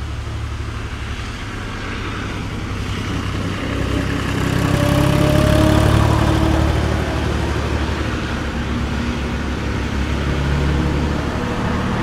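Dubbed-in truck engine sound effect running with a steady low drone, growing louder for a few seconds in the middle, standing in for the toy dump truck driving off.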